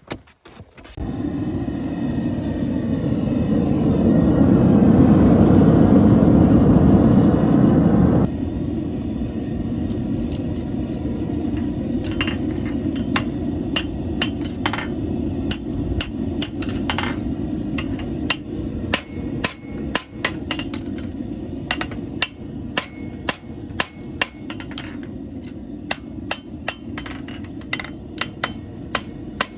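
A farrier's hammer striking a steel horseshoe on an anvil. The blows are sharp and ringing and come more and more often from about a third of the way in, over a steady rushing noise that is louder for the first several seconds.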